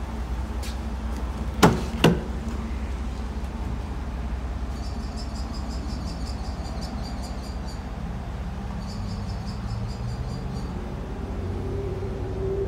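Tailgate of a 2017 GMC Sierra 1500 pickup: two sharp metal clunks about half a second apart, roughly two seconds in, over a steady low hum.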